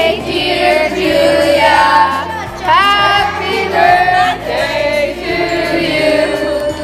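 A group of children's voices singing a birthday song together in unison, with long held notes.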